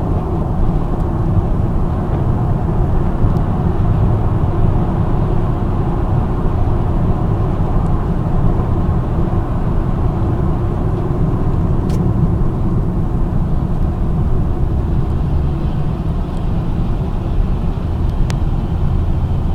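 Car driving at highway speed: a steady low rumble of road and engine noise with no change in pace, and two faint clicks, one about halfway through and one near the end.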